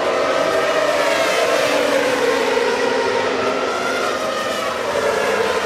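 Formula One cars' 2.4-litre V8 engines running at speed, one sustained high engine note that sinks slowly in pitch through the middle.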